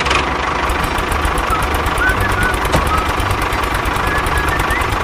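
Tractor engine sound running steadily with a fast, even beat, with a few short faint chirps over it.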